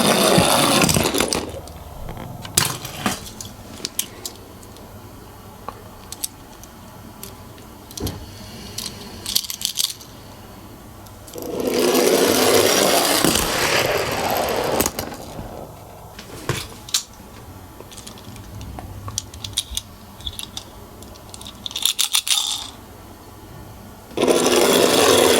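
Toy minicars (an ambulance and a bus) rolling down a slope track: rough rattling runs of about three seconds each, one ending about a second in, another from about 11 to 15 seconds, and a third starting near the end. Scattered clicks and taps come between the runs.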